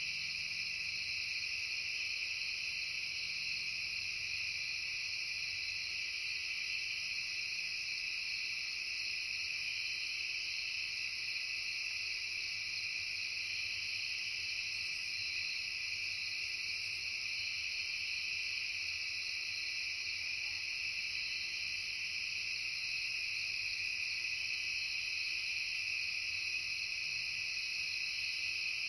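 Dense chorus of insects such as crickets, trilling steadily in several layered high-pitched bands.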